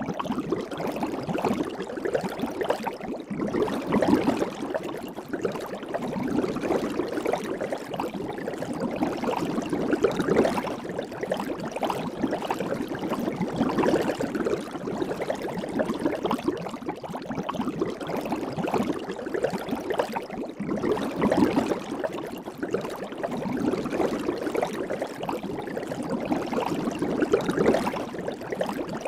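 Soap bubbles fizzing and crackling, a dense stream of tiny pops that swells and eases every few seconds.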